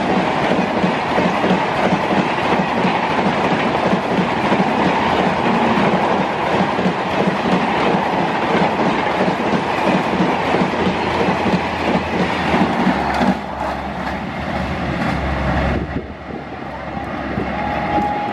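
Coaches of the Mumbai Rajdhani Express rushing past at about 130 km/h, wheels clattering over the rail joints. About sixteen seconds in, the noise drops sharply as the last coach goes by. Near the end a locomotive horn starts sounding faintly.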